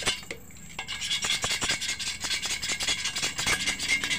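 Rapid, repeated scraping and rubbing strokes on the glass of a CRT picture tube around its high-voltage anode button, clearing off dirt so that silicone sealant will stick.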